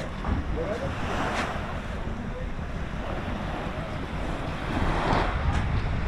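Wind buffeting the microphone outdoors: a choppy low rumble under a steady rushing noise, gusting a little stronger about five seconds in.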